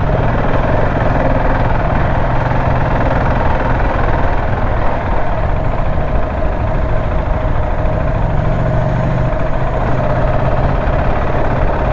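Motorcycle engine running steadily, with a steady rushing noise over it.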